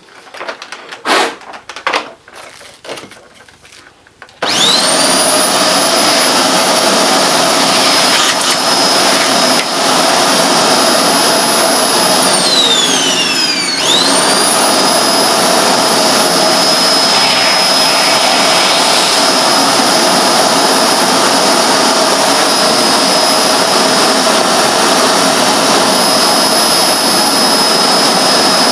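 A few knocks and clatters, then a Hoover Globe bagless vacuum cleaner switches on about four seconds in, its motor spinning up to a steady high-pitched scream. About halfway through, the whine falls in pitch, then climbs straight back up and runs on steadily.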